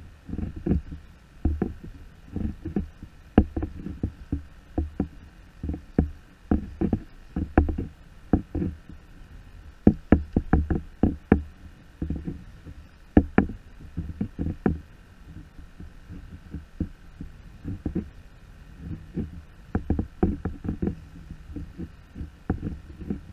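Irregular hollow knocks and thumps of small waves slapping against a plastic kayak hull, coming in uneven clusters, sometimes several a second.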